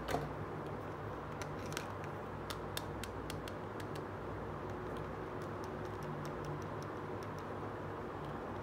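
Small plastic toy pieces being handled and set down: a sharp click at the start, then a scatter of light plastic clicks and taps, over a steady low hum.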